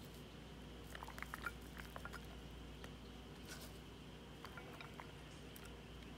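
Faint scattered light ticks and taps over a steady low room hum, busiest about a second in, as chopped onion and dried oregano are sprinkled onto a plate of chilaquiles.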